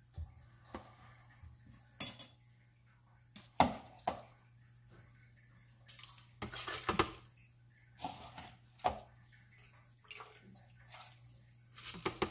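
Irregular knocks and clatters of kitchen bowls and a plastic blender jar being handled, with wet soaked rice dropped into the jar by hand. The loudest stretch is a cluster about six to seven seconds in.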